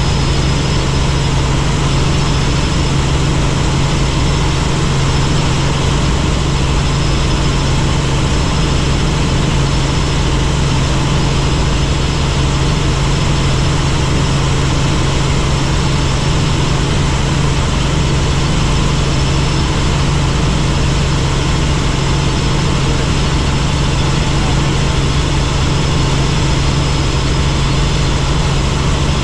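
Helicopter in flight: a steady, loud drone of rotor and engine with a strong low hum and a faint high whine, unchanging throughout.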